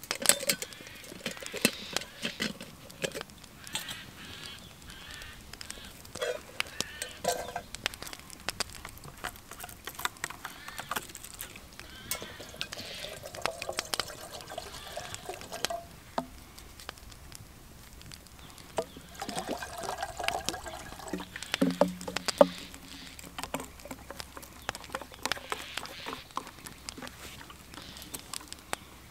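Water being poured, in a few spells, amid scattered sharp clicks and knocks of camp gear being handled.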